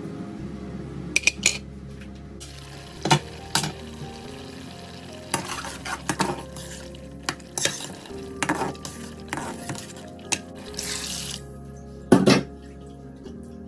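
A spatula stirring and scraping a thick curry in an aluminium pressure-cooker pot, with a light sizzle and sharp clacks as it knocks against the pot. The loudest knocks come about three seconds in and near the end.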